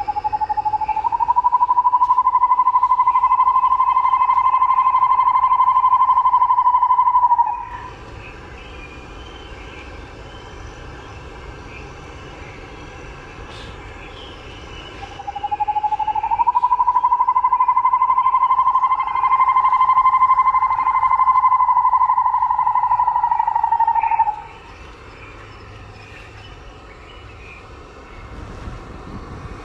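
A loud, steady, pitched buzzing drone sounds twice, each time for about eight seconds. Each rises a little in pitch as it starts and cuts off suddenly, with quieter outdoor background in between.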